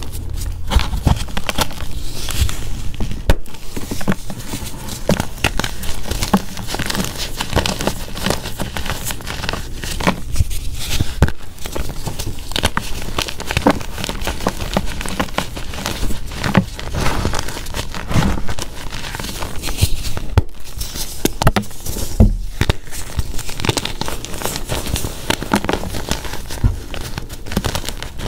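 Hard blocks of Z Athletic gym chalk, dyed and coated in holi powder, crunching and crumbling as hands squeeze them, with a dense, continuous run of small crackles and crumbs falling.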